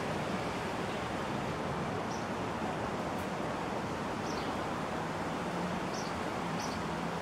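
Steady outdoor background hiss with a few short, high bird chirps scattered through it. A faint low hum comes in about five seconds in.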